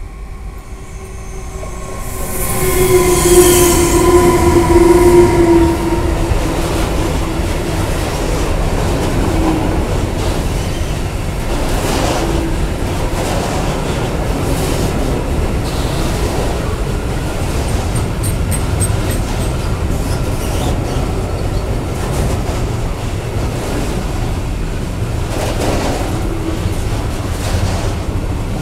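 A DB electric locomotive passes close by with a loud humming whine that drops slightly in pitch as it goes past. A long iron ore train of hopper wagons follows, rolling by with a steady rumble of wheels and occasional clacks over the rail joints.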